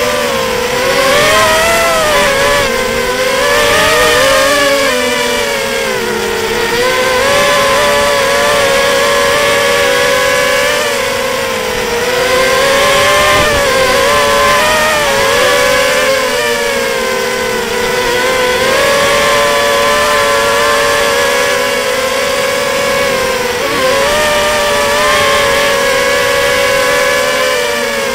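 Bullet 240R FPV racing quadcopter's motors and propellers whining in flight, heard close from its onboard camera. The pitch wavers up and down all the way through as the throttle changes.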